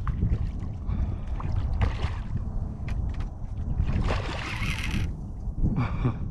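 Wind rumbling on the microphone out on a kayak, with a few short bursts of water splashing and sloshing around the boat.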